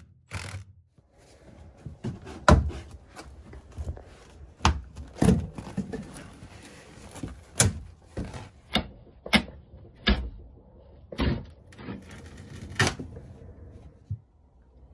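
Irregular knocks and clunks, about ten over the stretch, from handling tools and hardware against the camper's wooden bed frame, with low rubbing and handling noise between them.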